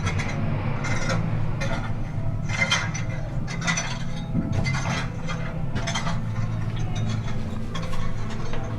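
Hand tools chipping at rock: uneven sharp metallic clinks, roughly two a second, over a steady low hum. This is the sound of the shelter being dug out of the rock by hand.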